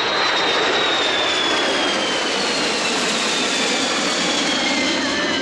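Two Kawasaki C-1 transport jets passing low in formation, their JT8D turbofan engines giving a loud, steady rushing noise with a high whine that falls slowly in pitch as they go by.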